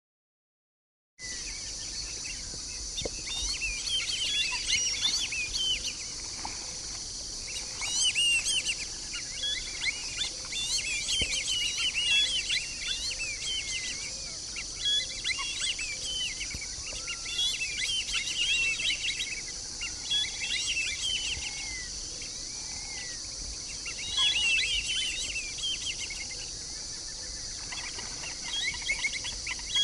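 White-faced whistling ducks giving high, wavering whistled calls in bouts every few seconds over a steady high insect buzz; the sound starts about a second in.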